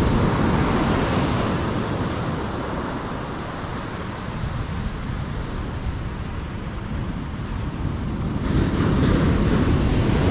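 Ocean surf breaking and washing up a sandy beach. The rush of the wash eases off mid-way and swells again near the end as the next wave comes in.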